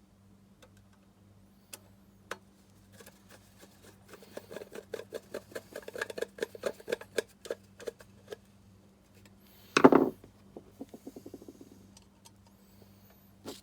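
Hand assembly of a small electronics case: a run of quick clicks for about four seconds, then one loud knock near the ten-second mark.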